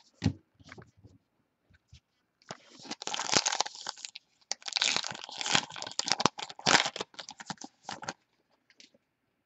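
A few sharp clicks of card handling, then a foil trading-card pack wrapper being torn open and crinkled for about five seconds.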